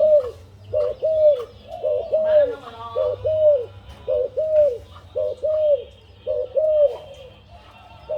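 Zebra dove (Malay dove) cooing its song over and over, about one phrase a second, each phrase a quick stuttered double note followed by a longer arched coo.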